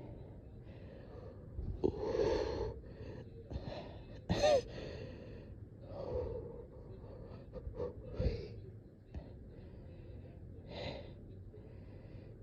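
A person breathing with effort, short of breath: a separate audible breath every couple of seconds, with a louder, briefly pitched catch of breath about four and a half seconds in.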